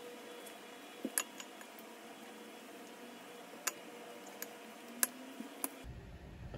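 Faint, scattered light clicks and taps of desk work, about six in all, over a quiet steady hiss.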